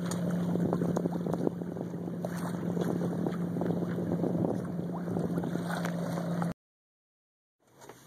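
Water rushing and splashing past a moving sailboat's hull, with wind on the microphone and a steady low hum underneath; it cuts off abruptly about six and a half seconds in.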